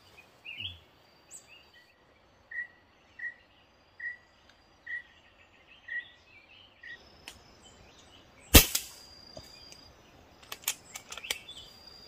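A bird repeats a short call note about seven times, each under a second apart. Then, about eight and a half seconds in, a single loud, sharp hunting shot rings out, followed by a few lighter clicks.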